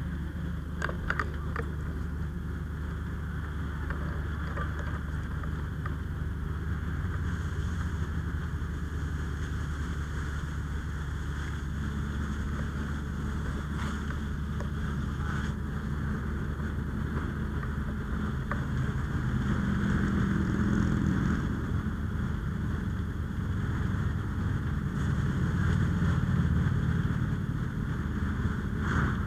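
Steady low drone of a fire engine's diesel running its pump to feed the hose lines, swelling a little twice in the second half, with some wind on the microphone.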